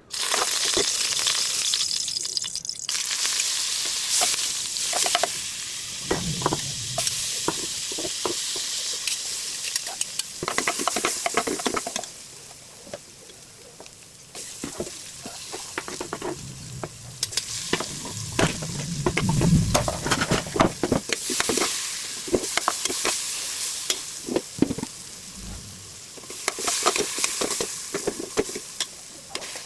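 Food sizzling in hot oil in a pan while being stirred, with a utensil scraping and clicking against the pan. The sizzle starts suddenly at the beginning and eases for a couple of seconds about halfway through.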